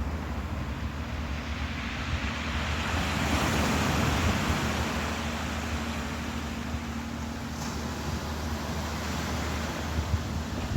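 Ocean surf washing in steadily, one wave swelling about four seconds in and then easing off, with wind buffeting the microphone. A low steady hum runs underneath.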